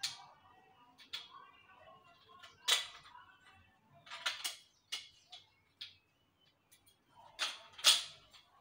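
Irregular sharp clicks and knocks from a DStv satellite dish's feed arm and LNB holder being handled and fitted together, the loudest a little under three seconds in and near the end.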